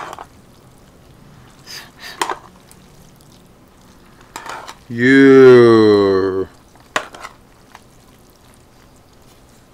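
Noodles being stirred and mixed with chopsticks in a stainless steel bowl, with scattered short clinks. About five seconds in, a man's voice lets out one loud, drawn-out sound lasting about a second and a half, slightly falling in pitch.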